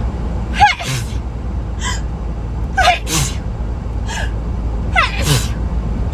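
A woman sneezing three times in a row, about two seconds apart, each a falling-pitched 'ah' breaking into a sharp 'choo'. Short sharp intakes of breath come between the sneezes, over a steady low hum.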